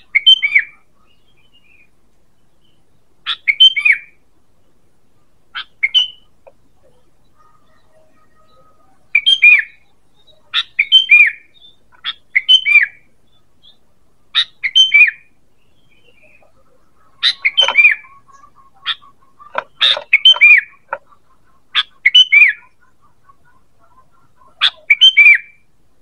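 Sooty-headed bulbul (kutilang) calling: short, loud phrases of a few quick notes, repeated about every one to three seconds with brief pauses between them.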